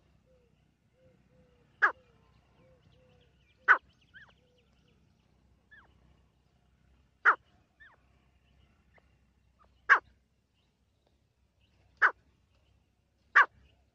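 Grey francolin (teetar) calls: six short, sharp, loud notes spaced irregularly one and a half to three and a half seconds apart, with faint soft low notes in the first few seconds.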